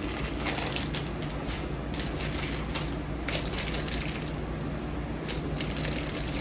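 Crinkling and rustling of a plastic sweets packet, a dense irregular crackle as it is pulled from a cardboard box and handled.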